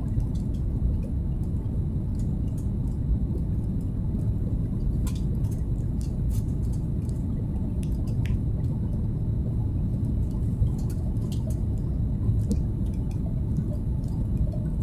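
Steady low cabin rumble of a Boeing 737 MAX 8 descending on approach with flaps extended: engines and airflow heard from inside the cabin by a window seat. A few faint clicks come through over it.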